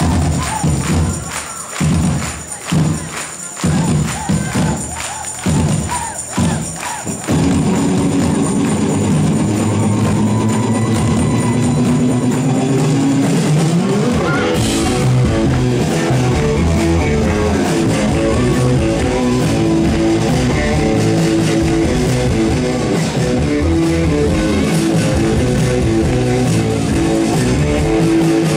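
Live rock band music, loud: about seven seconds of choppy, stop-start hits, then the full band comes in steadily with guitar and drums, and a rising swoop about halfway through.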